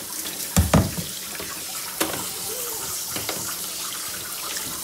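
Water from a handheld shower sprayer hissing steadily onto a wet puppy's coat and the bathtub. Two loud thumps come a little over half a second in, and a sharp click at about two seconds.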